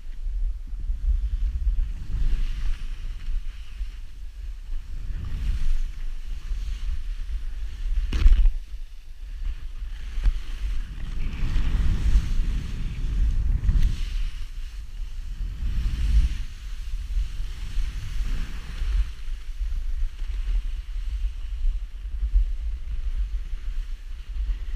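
Wind buffeting the microphone in a constant low rumble, with surging hisses of edges carving and scraping through snow on each turn, every couple of seconds. A sharper hit about eight seconds in.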